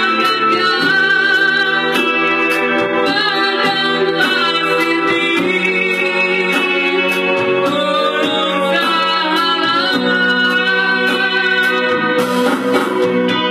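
Male voice singing a Malay pop-rock song into a microphone over amplified band accompaniment with electric guitar and keyboard, loud and continuous.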